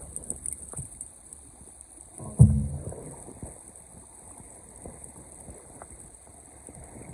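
Steady rush of river water below a dam, with small scattered clicks and one loud, short thump about two and a half seconds in.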